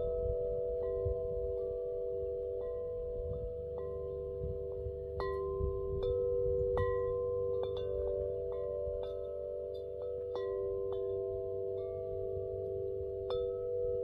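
Metal tubular wind chimes ringing, struck irregularly many times so that each note rings on and the tones blend into a lasting chord, with a low rumble underneath.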